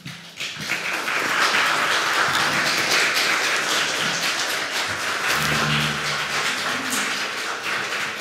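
Audience applauding, the clapping swelling about half a second in and then holding steady; a voice briefly murmurs in the middle of it.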